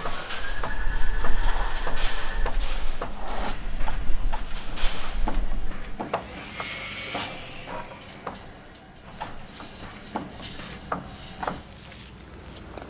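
Construction sound effects: a heavy machine's low rumble, with a steady high tone over it for the first couple of seconds, and scattered knocks and clanks throughout. The rumble drops away about six seconds in, leaving quieter, sparser knocks.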